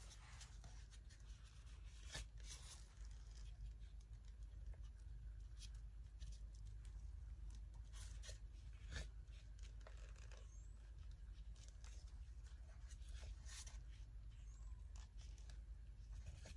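Near silence over a low steady hum, with scattered faint clicks and scrapes from gloved hands handling a paint-covered canvas on a turntable.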